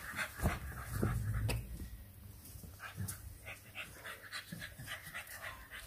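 English bulldog panting in short quick breaths, with a few soft knocks and a brief low rumble near the start.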